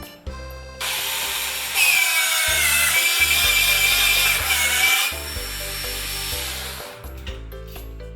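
A power drill runs for about six seconds, boring into material, its whine dipping slightly under load, over background music.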